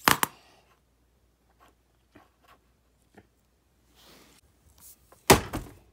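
A sharp double clack at the start, a few faint taps, then a single heavy bang about five seconds in.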